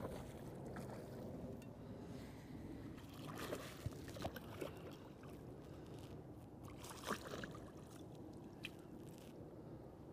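Water sloshing against a bass boat's hull while a hooked bass is fought beside the boat, with a few brief splashes at about three and a half, four and seven seconds in.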